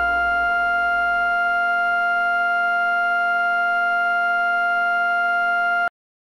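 Electronic drone of several steady tones held as one chord, with a low rumble fading away in the first second. It cuts off abruptly near the end, into dead digital silence.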